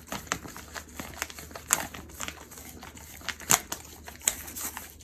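A dog chewing dry dog food: an irregular run of sharp crunches and clicks, the loudest about a third of the way in and again just past the middle.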